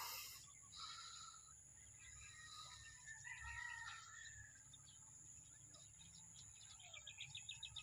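Faint open-air ambience: birds chirping and calling now and then over a steady high-pitched whine and a low rumble, with a quick run of ticking calls near the end.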